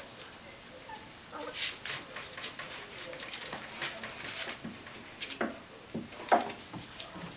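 Young Welsh Springer Spaniel puppies whimpering, with scrabbling claws and knocks on the wooden side of a whelping box as a puppy clambers over it. The scratches and knocks come in a scattered run, the sharpest about six seconds in.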